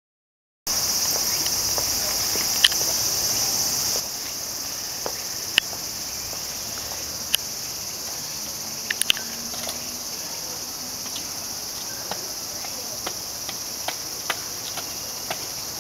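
Steady high-pitched shrilling of insects in the trees, louder for the first few seconds and then a little quieter, with scattered sharp clicks on top.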